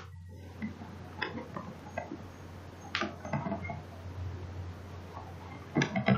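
Faint scattered clicks and taps, a few of them close together around the middle and near the end, over a steady low electrical hum.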